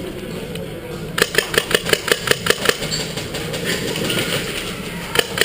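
Airsoft gun firing fully automatic: a rapid string of sharp shots at about seven a second starting about a second in, and another burst starting near the end.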